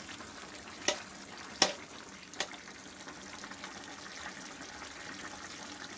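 Thick tomato-and-seafood sauce simmering in a pan with a steady low sizzle and bubbling. Three sharp clicks come in the first two and a half seconds.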